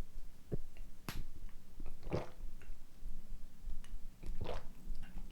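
Close-miked gurgles from an empty stomach after a 12-hour fast, with carbonated water just drunk: two short clicks, then two wet gurgles about two seconds apart.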